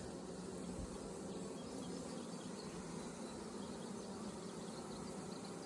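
Honeybees buzzing in a steady, low hum as a swarm colony's hive is opened for a brood check.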